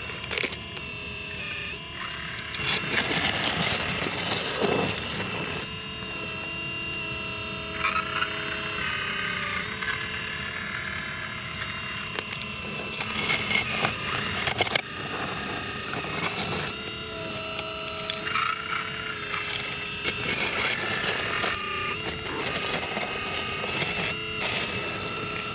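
Scale RC Volvo EC460B hydraulic excavator's hydraulic pump and electric motors whining as the boom, arm and bucket are worked, the pitch stepping up and down with the controls. Occasional rattles of dirt and stones.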